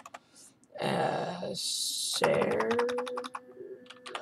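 Computer keyboard keys tapped in quick succession, backspacing a misspelled word. A muttered voice with a hiss comes about a second in, then a held hum under the first taps.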